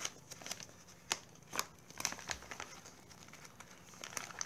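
Clear plastic parts bag crinkling as it is handled, in quick, irregular crackles.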